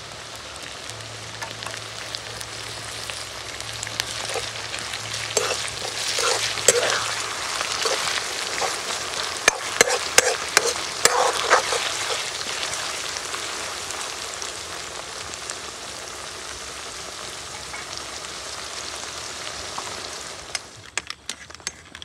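Sliced onions sizzling in hot oil in a steel wok, with chopped chilies and aromatics just tipped in. A steel spoon stirs and scrapes against the pan, giving sharp clicks from about five seconds in to about twelve. The sizzle then settles and falls away near the end.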